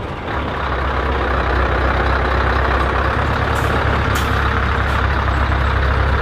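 Heavy truck engine running steadily: a deep low rumble with an even rushing noise over it.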